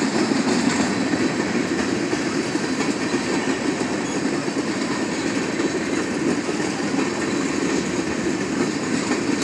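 Freight train of tank cars rolling past, its steel wheels running steadily over the rails.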